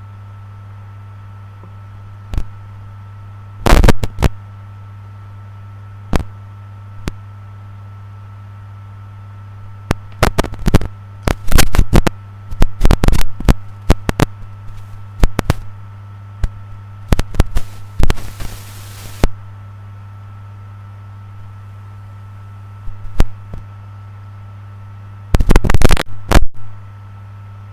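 Steady low electrical hum, broken by irregular clusters of loud distorted crackles and pops, thickest from about a third of the way in to past the middle and again near the end.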